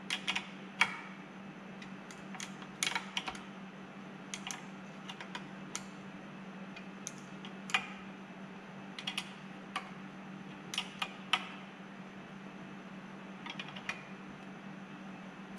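Irregular short runs of metallic clicks from a wrench working the housing bolts on a Tohatsu 20 hp four-stroke outboard's lower unit as they are snugged down. A steady low hum runs underneath.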